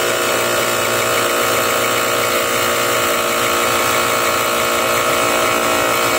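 A small 12-volt portable tire air compressor running steadily and loudly, its motor and piston pump working properly and blowing out a fairly strong stream of air.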